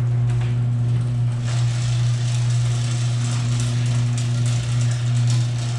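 Garage door opener motor humming steadily while the door travels along its tracks with a loud rattling, grinding clatter of rollers and hinges. The door has just had its moving parts sprayed with 3-in-1 oil after years without maintenance, and it is still noisy.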